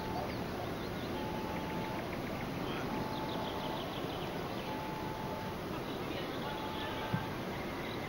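Quiet outdoor ambience in a pine wood: a steady hiss with a few faint bird chirps about three seconds in. A faint even tone sounds for under a second about every two seconds.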